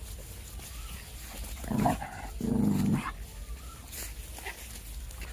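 A puppy makes two short vocal sounds about two seconds in, the second a little longer.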